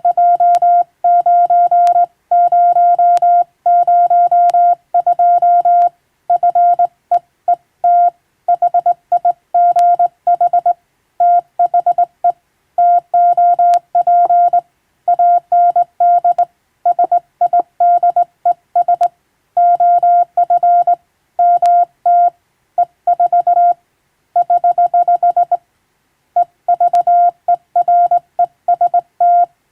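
Morse code sent by hand on a straight key: a single steady mid-pitched beep switched on and off in dots and dashes, with short gaps between letters and longer gaps between words, spelling out English-language telegram practice text.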